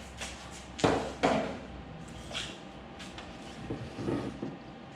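A few short knocks and clatters from handling things on a workbench, the two loudest about a second in, followed by softer knocks and rubbing while wood stain is being applied.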